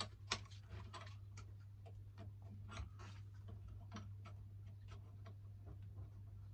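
Irregular light clicks and taps as a stainless tube with its purge bung is handled and seated in the collet of an orbital welding head, over a steady low hum.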